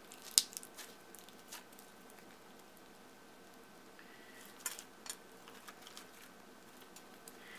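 Thick clear slime with foam beads being squished and stretched by hand, giving scattered sticky clicks and pops. The loudest comes right at the start and a few more come about halfway through.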